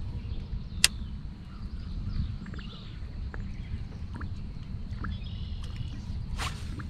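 Steady low rumble of wind and water around a small fishing boat on open water, with scattered sharp clicks and ticks, the loudest about a second in and another near the end.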